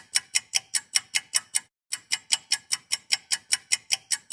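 A clock ticking rapidly at about five ticks a second, with a brief break a little under two seconds in. It is a sound effect marking the passing of time.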